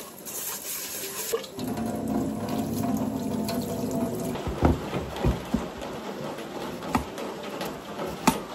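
Kitchen tap running into a metal sink and splashing on a pan being washed by hand, louder for a few seconds as the stream hits the pan. A few sharp knocks come in the second half.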